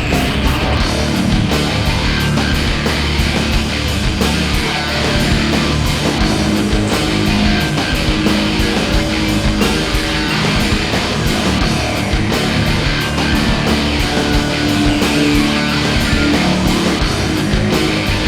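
Heavy rock music with distorted electric guitar and a steady drum beat.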